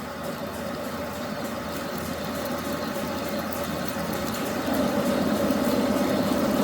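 Old Monarch metal lathe running while a parting tool cuts a 4150 steel bushing off to length: a steady machine hum with a constant tone, slowly growing louder and stepping up about three-quarters of the way through.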